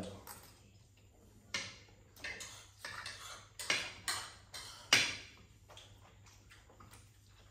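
A metal spoon scraping and clicking against a plate of rice, about six short strokes over a few seconds.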